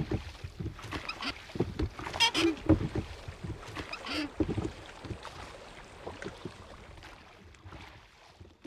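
Old wooden doors creaking on their hinges, with knocks and thuds as they swing shut. The sounds thin out and fade away near the end.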